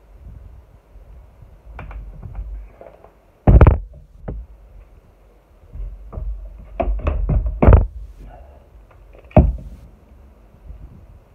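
Irregular knocks and thuds from a wheeled dolly and tools being handled, with three loud sharp knocks about 3.5, 7.7 and 9.4 seconds in and lighter clatter between them.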